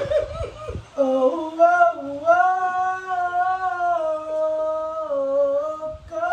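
A woman singing unaccompanied, holding long notes in a slow melody that drifts up and down, with a brief low rumble in the first second.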